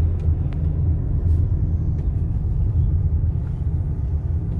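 Steady low road rumble of a moving car heard from inside the cabin, with a few faint clicks about half a second in.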